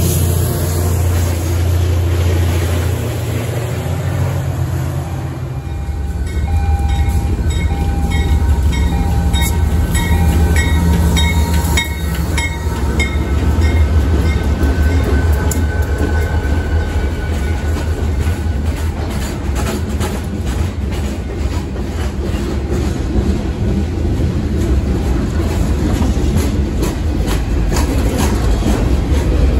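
A passenger train's diesel locomotive passes with a steady low drone that gives way after about five seconds. A Pan Am Railways diesel freight locomotive then runs past close by, and a bell rings repeatedly for several seconds. Freight cars follow, rolling by with a steady running noise and repeated clicking over the rail joints.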